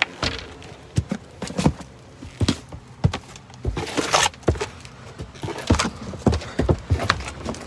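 Footsteps knocking on steps, a string of irregular thuds about one to two a second, as someone climbs up into an attic.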